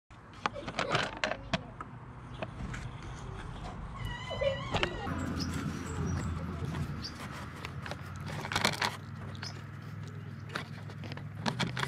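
Clicks, knocks and rustles of gloved hands handling the plastic air filter housing and intake hose in an engine bay, over a steady low hum. A short high squeak comes about four seconds in.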